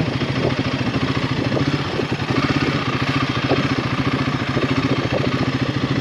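Royal Enfield Himalayan 450's single-cylinder engine running at a steady pitch while the motorcycle is ridden along.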